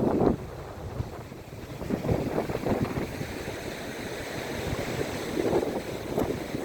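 Sea waves washing onto a beach in surges, with wind rumbling on the microphone, loudest in a gust right at the start.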